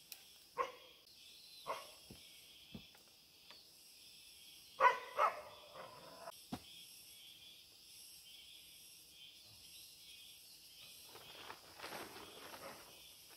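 Steady high-pitched insect chorus. Over it come a few short, sharp sounds, the loudest a pair about five seconds in. Near the end a plastic tarp rustles as it is pulled and tied to a tree.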